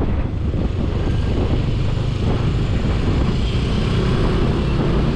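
Motorcycle ridden along a city street: the engine running steadily under a heavy, even rumble of wind buffeting the helmet or handlebar camera's microphone.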